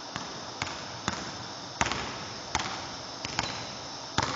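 Basketball being dribbled on a hardwood gym floor: about eight sharp bounces, irregularly spaced roughly half a second apart, each with a short echo off the gym walls.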